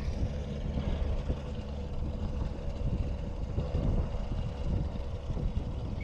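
Motorboat engine rumbling steadily on the lake, with wind buffeting the microphone and a faint steady hum underneath.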